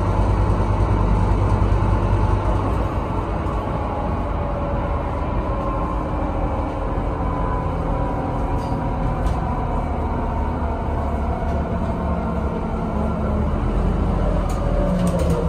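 Interior ride noise of a Scania Citywide LFA articulated city bus under way: a steady low engine and road rumble with a faint whine. Near the end the whine falls in pitch and there are a few light rattles.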